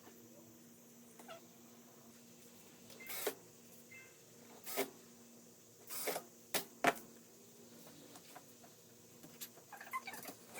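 A handful of short knocks and scrapes, about six spread through the middle, over a steady low electrical hum, with a few small ticks near the end.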